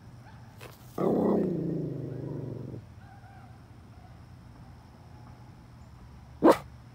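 Miniature poodle howling: one howl of about two seconds that starts high and drops in pitch, with faint howls of other dogs behind it. Then one short, sharp bark near the end.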